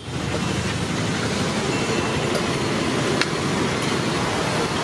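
Steady roadside traffic noise, with a few light clicks near the middle.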